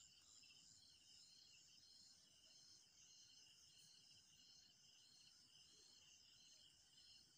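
Near silence, with faint insect chirring in the background: steady high-pitched, with one strand pulsing about twice a second.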